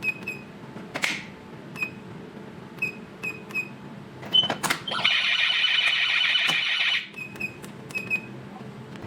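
Addressable fire alarm control panel beeping once at each key press. A little past halfway its buzzer sounds continuously for about two seconds, followed by a few more single beeps.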